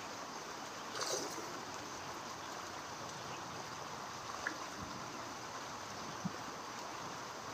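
Creek water flowing with a steady rush, with a brief rustle about a second in.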